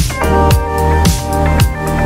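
Background electronic music with a steady kick-drum beat, a little under two beats a second, over held chords.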